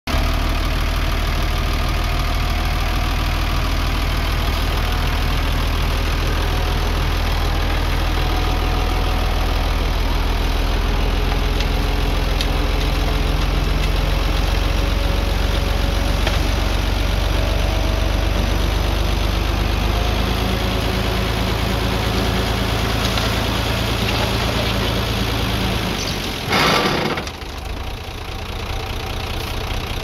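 Diesel engines of a Komatsu D31P bulldozer and a 5-ton dump truck running steadily at a low rumble. Near the end a sudden rush of noise lasts about a second, and then the engine note drops and runs quieter.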